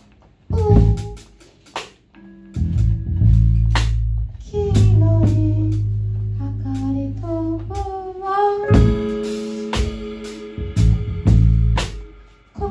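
Live band music: drum kit hits and a heavy bass line under guitar, with a sung melody line, broken by brief pauses between phrases.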